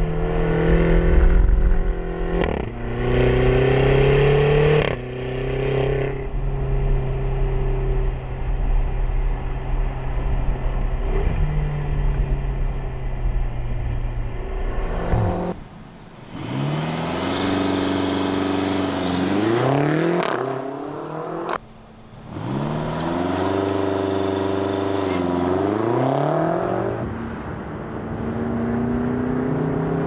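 BMW X5 M and X6 M 4.4-litre twin-turbocharged V8 running hard. In the first half it is a fairly steady drone with wind noise. From about halfway it revs repeatedly, the pitch climbing and falling, with a brief dip between two of the rises.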